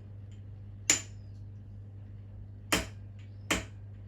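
Centre punch struck with light hammer taps to mark a steel connecting rod cap: three sharp metallic taps, each with a short ring.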